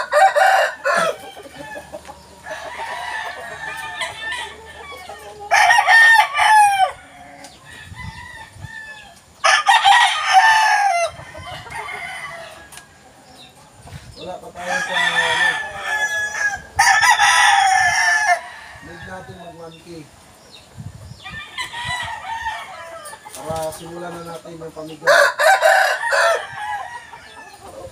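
Caged Boston Roundhead gamecocks crowing in turn, about six crows of a second or two each, a few seconds apart, with quieter clucking between.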